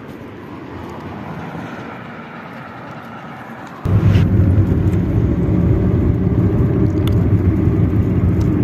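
A car's engine and road noise heard from inside the cabin while driving, a loud steady low hum, starting abruptly about four seconds in. Before that, quieter open-air road noise that swells and fades.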